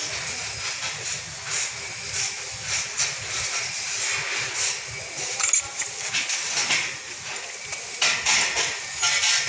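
Irregular scraping and clicking of metal as gloved hands work the cable clamps on a car battery's terminals, over a steady hiss.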